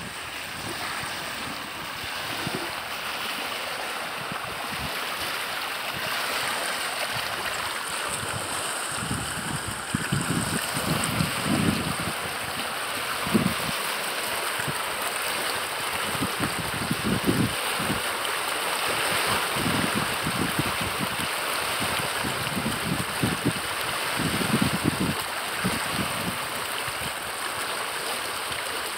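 Swollen, flooded creek rushing fast past its bank in a steady wash of water noise. Low gusts of wind buffet the microphone now and then.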